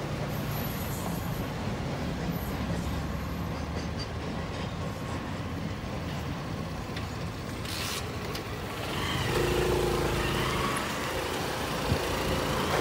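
Steady low engine drone that grows louder from about nine seconds in.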